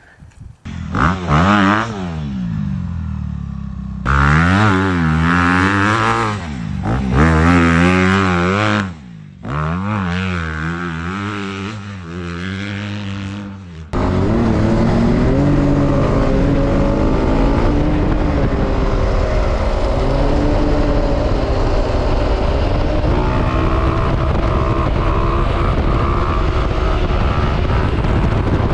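Dirt bike engine ridden hard, its pitch climbing and dropping again and again with throttle and gear changes. About fourteen seconds in the sound cuts abruptly to a louder, steadier engine run.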